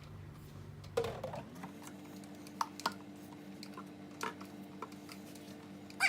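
Scattered light clicks and taps from cleaning a kitchen bench with a spray bottle. A faint steady hum comes in about a second and a half in.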